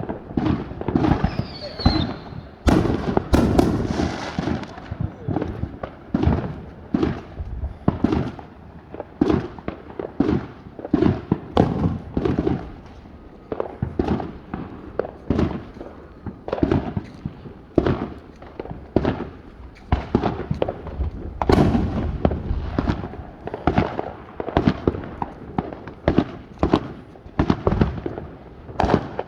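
Consumer fireworks going off in a rapid, continuous barrage of booms and crackling bangs, each with an echoing tail, several a second at times. A short falling whistle is heard about a second in.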